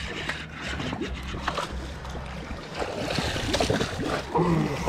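Water splashing and sloshing as a hooked fish thrashes at the surface beside the boat while it is pulled in on the line, over a steady low hum.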